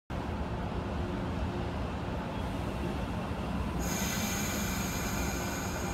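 A JR 115-series electric train stands at the platform with a steady low hum. About four seconds in, a high, steady hiss with a whistling tone starts and keeps going.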